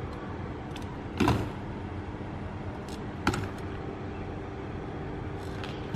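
A BMX bike knocking on a concrete curb ledge and paving: a sharp knock about a second in, another a little past three seconds, and a few lighter ticks, over a steady low hum.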